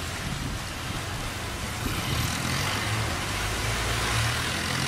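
Cargo boat's engine running hard as it pushes upstream against a strong current, a low steady drone that grows louder about two seconds in as the boat comes closer, over the hiss of rushing water.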